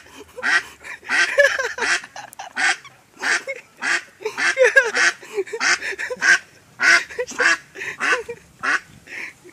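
Muscovy duck giving repeated short, harsh honking calls, two or three a second, as it is pressed to make it sound like a New Year's trumpet.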